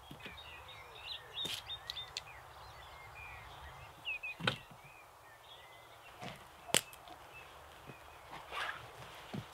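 Sticks and a log being laid onto a wooden bushcraft chair frame, with scattered wooden knocks and clatters. The loudest knocks come about four and a half and almost seven seconds in. Birds sing in the background throughout.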